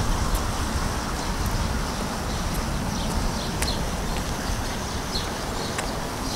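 Open-air ambience: a steady low wind rumble on the microphone, with scattered short, high-pitched chirps of small birds throughout.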